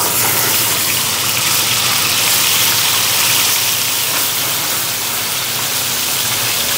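Tomato passata sizzling steadily in a frying pan of hot oil and garlic as it is poured in.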